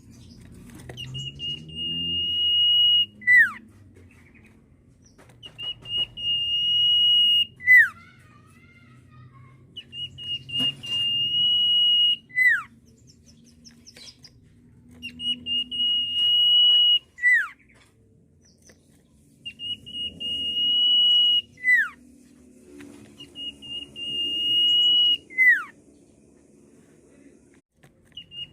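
Sirtu (cipoh, an iora) whistling its typical song six times. Each call is a long, steady high whistle of about two seconds that ends in a quick downward slide, repeated roughly every four to five seconds.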